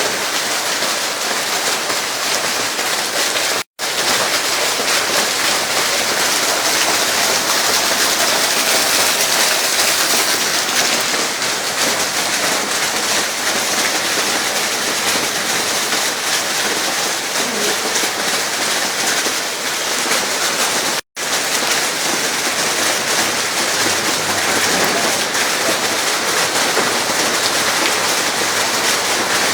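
Rain falling steadily, a loud even hiss of drops on surfaces. It cuts out completely for an instant twice.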